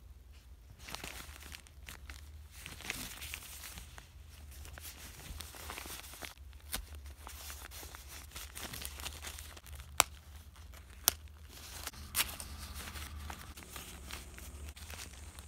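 A brown recycled-paper package being unfolded and torn open by hand: paper rustling and crinkling, with a few sharp snaps, the loudest about ten and eleven seconds in.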